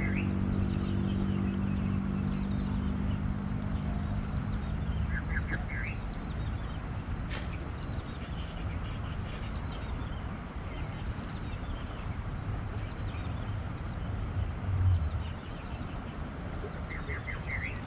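Outdoor riverbank ambience: a low engine hum fades away over the first few seconds while a bird sings short bursts of rapid chirps three times. A steady low rumble runs underneath, with a sharp click about seven seconds in and a dull bump about fifteen seconds in.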